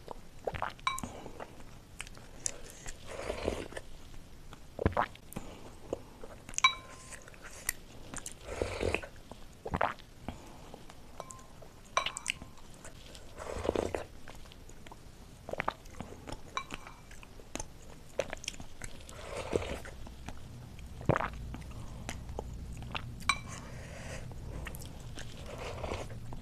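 Close-miked eating sounds: wet chewing and smacking of sauced chicken momos, with sips of soup from a ceramic spoon. A few times the spoon clinks against the glass soup bowl with a short ring.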